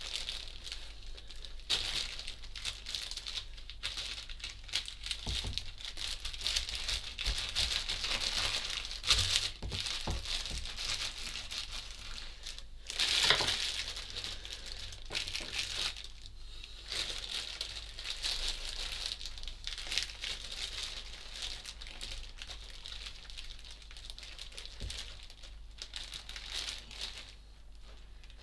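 Plastic bag crinkling and rustling in uneven spells as hands lift and pull apart the two halves of a round flatbread lying on it, with a louder burst about halfway through.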